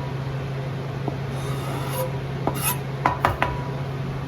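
Chopped onion sizzling in an oiled cast-iron pan, a steady rough hiss over a low hum, with a few light clicks from a utensil in the pan about a second in and again near the end.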